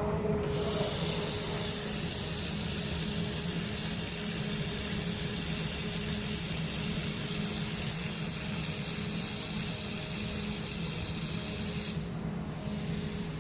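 Handheld air-cooled laser welder firing: a steady hiss of the weld and its shielding gas that starts just after the trigger is pulled and cuts off sharply near the end, over the steady hum of the welder's cooling fan.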